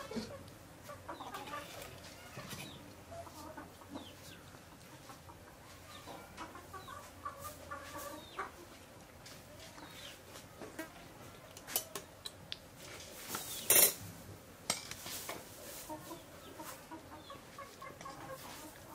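Domestic chickens clucking in the background, with scattered light clicks of dishes and one short, loud noisy burst about three-quarters of the way through.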